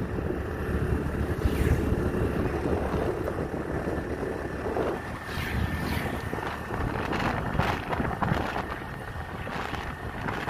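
Wind buffeting the microphone on a moving motorbike, with engine and road noise underneath.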